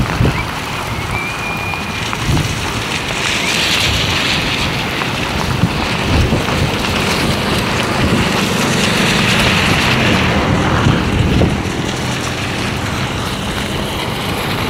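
Heavy rain and gusting wind buffeting the microphone, with traffic driving through standing water on the road and throwing up spray. The rushing noise swells twice, as vehicles pass.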